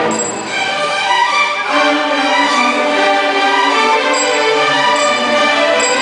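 Student string orchestra playing live: violins, cellos and double basses bowing held notes together.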